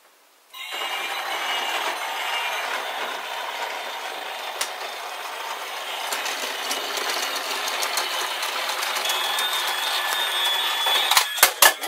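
Toy train running on its track: a steady motor whir with wheel rattle, starting under a second in, then a few sharp knocks near the end.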